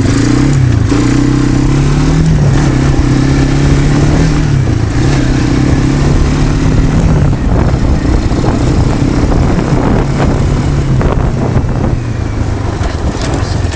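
ATV (quad) engine running as it drives off, its pitch rising and falling with the throttle over the first few seconds, then holding steadier.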